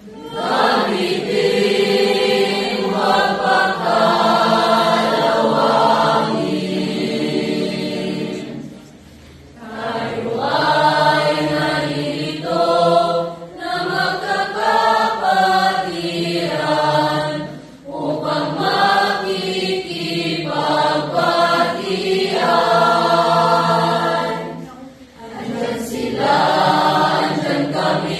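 Mixed youth choir of young men and women singing together in sustained phrases, with brief breaks between phrases about every eight seconds.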